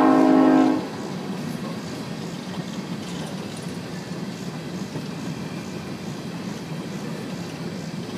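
Train horn sounding a chord that cuts off under a second in, followed by the steady rolling noise of empty coal cars passing on the track.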